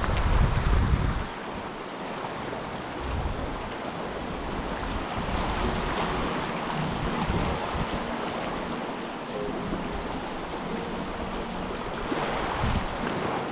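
Steady rush of river water, with gusts of wind buffeting the microphone in low rumbles about a second in, again a few seconds later and near the end.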